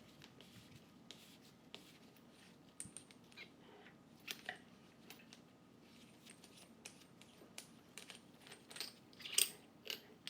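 Faint metal clicks and scrapes as the nose adapter is unscrewed by hand from a Huck BV4500 lockbolt tool, with a few louder clicks near the end.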